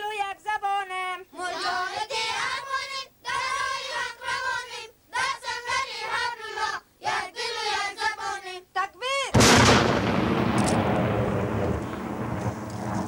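Children's high voices in a sing-song chant, with held notes and short breaks. About nine seconds in they cut off under a single loud explosion-like boom, which rumbles and fades slowly.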